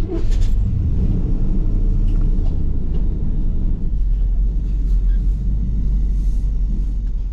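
Truck engine starting up, then running with a steady low rumble, heard close up from the hood.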